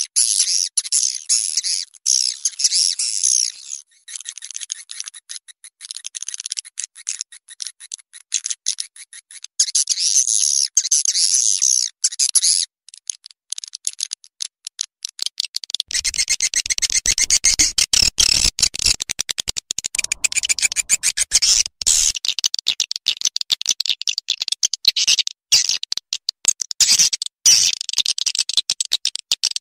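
Swiftlet lure call ('suara panggil walet'): a blended recording of swiftlets' rapid, dense chirping and twittering, made to be played from a swiftlet house to draw the birds in. About halfway through, a deeper, fuller layer joins under the high chirps.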